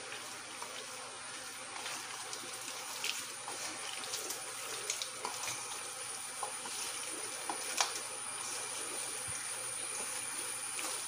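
A hand squelching raw chicken pieces through a thick, wet egg marinade in a steel bowl: soft wet squishes and small clicks over a steady background hiss.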